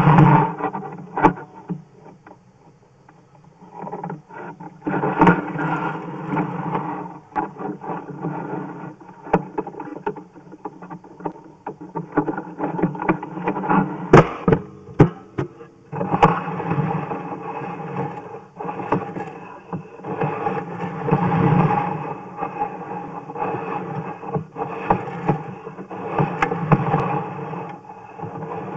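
Sewer inspection camera and its push cable being fed into a drain pipe, scraping and clattering with many sharp knocks and clicks. There is a loud knock at the very start.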